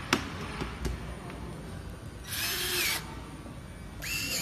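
Cordless drill driving a screw into the whiteboard's metal frame: one short burst of under a second with a motor whine that dips in pitch as it stops, then a second burst starting near the end. A sharp click comes just after the start.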